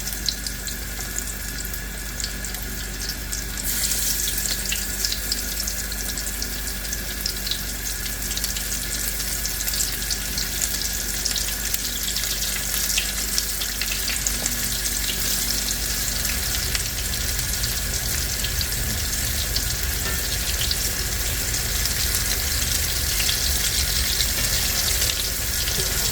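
Cornmeal-breaded tomato slices frying in hot grease: a steady sizzle with fine crackling. It grows louder about four seconds in and stays up.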